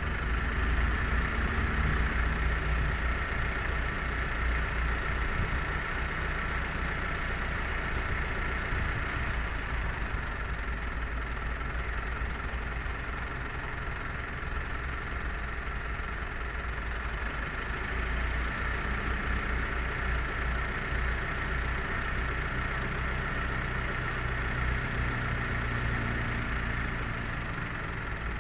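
Steady engine-like low rumble under a constant hiss.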